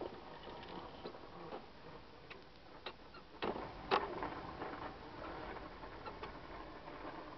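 A few light, scattered clicks and knocks over a quiet background, the two loudest about three and a half and four seconds in.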